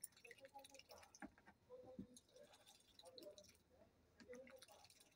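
Muscovy duck dabbling its bill in a tub of water with chopped kale, making faint, irregular wet clicks and squishes as it scoops up and swallows the leaves.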